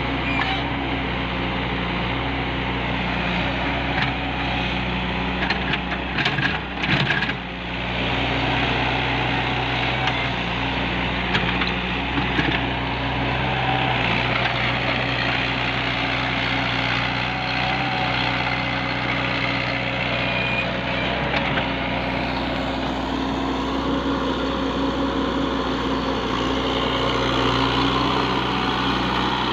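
Mini excavator's diesel engine running steadily, with a cluster of knocks and clatters about six to seven seconds in.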